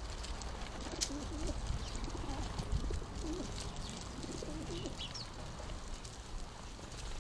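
A pigeon cooing in several low, wavering phrases over a few seconds, with a few short high chirps from house sparrows.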